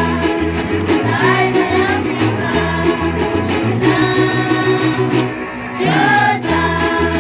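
A group of girls singing together in unison while strumming small ukulele-like guitars, with a steady strummed beat and a low bass line under the voices.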